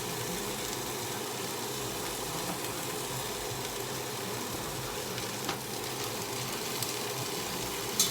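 Purple cabbage sizzling steadily in a very hot pot, with a couple of faint clicks, the last near the end.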